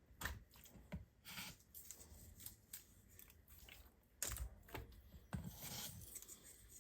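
Faint kitchen handling noises as raw chicken breasts are laid in a tray and seasoned: scattered short scrapes, rustles and crunching strokes, a few louder ones along the way.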